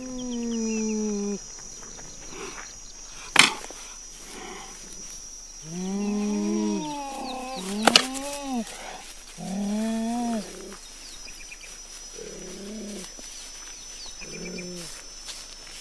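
Big-cat calls built from cheetah and leopard recordings: a series of about six drawn-out, pitched calls, each rising and falling over about a second, the last ones fainter. Two sharp clicks cut in, and a steady high whine runs underneath.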